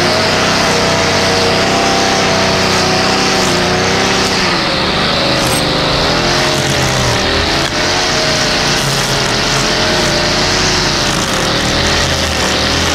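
2011 Stihl FS55R string trimmer's 27.2 cc two-stroke engine running at high revs, its pitch dipping and rising several times as the throttle and cutting load change.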